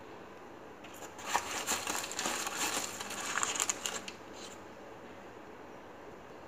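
A plastic packet crinkling and rustling as it is handled, with a few sharp clicks, for about three seconds starting about a second in; then only faint room tone.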